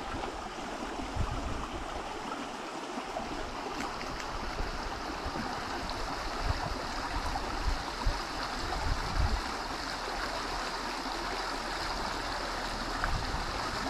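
Small rocky stream running steadily, water tumbling over boulders into a pool with an even rush, with a few soft low thumps.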